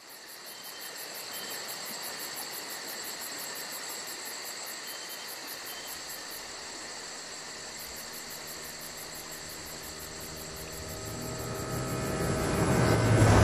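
Insects trilling steadily, with a rapid high pulsing about six times a second. Near the end a quad bike's engine comes in and grows louder as it approaches.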